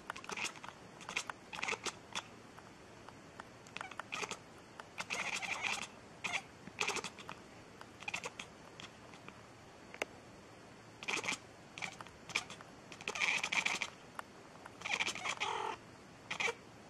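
Cat meowing over and over in short, quick calls, with a few sharp clicks in between.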